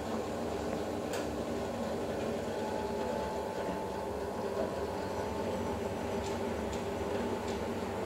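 Girbau front-load washer tumbling a wet load in a hot wash cycle: a steady motor hum with water sloshing in the drum, and a few faint clicks.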